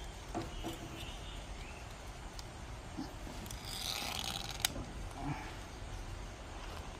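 Faint scraping and handling noises over a low steady rumble, with one sharp click about four and a half seconds in.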